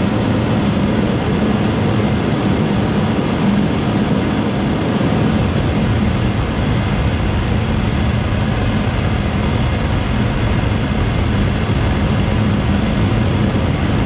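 Homemade Frosty T-style gas burner running at 10 PSI with forced air from a shop vacuum: a steady rushing noise of flame and blower with a low hum, even and without pulsing.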